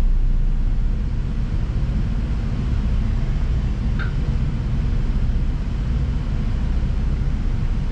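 The yacht's twin engines running steadily at low speed, a low rumble heard from the helm while the boat is turned with the engines split, one forward and one in reverse. A brief faint chirp about four seconds in.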